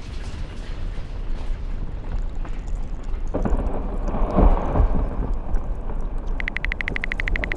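Inner sounds of a melting glacier picked up by microphones dropped into its meltwater and against the ice: a deep, steady drone with a louder crackling rumble swelling about halfway through. Near the end a fast, rhythmic clicking starts and keeps an even beat.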